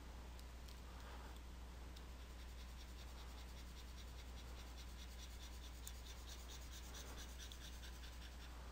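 Faint scratching of a drawing pen in quick short strokes, a rapid run of small ticks from about two and a half seconds in until near the end, over a low steady electrical hum.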